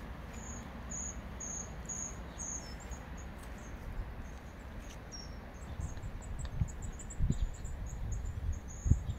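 A cricket chirping in short, high-pitched pulses, a few a second, over a low rumble. A few low, muffled thumps come in the last few seconds.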